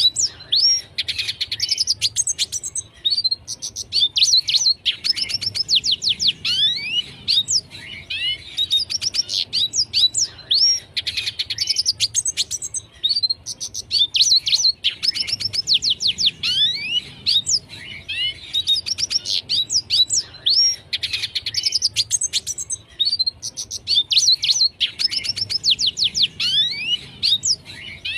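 Red siskin singing without a break: fast twittering phrases of quick sweeping whistles and trills, one after another with short gaps of about a second.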